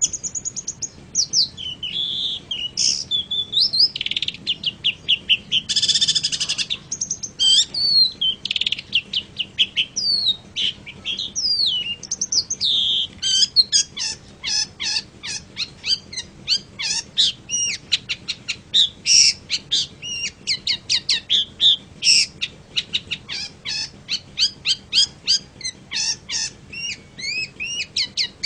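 Long-tailed shrike singing a long, varied song of quick chirps and whistled glides, with a harsh buzzy call about six seconds in. The notes come faster and more densely through the second half.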